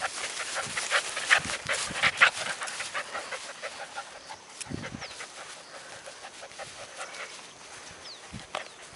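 Bernese Mountain Dog puppy panting close by, in quick breathy strokes that are loudest over the first three seconds and then fainter.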